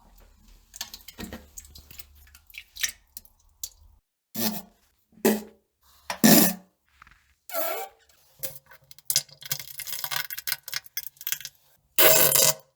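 Farts and defecation noises: a string of short separate bursts, some dropping in pitch, then a longer crackling, sputtering stretch about two-thirds of the way through and a loud burst near the end.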